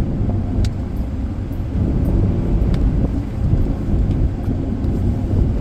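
A car driving along: steady low rumble of road and engine noise.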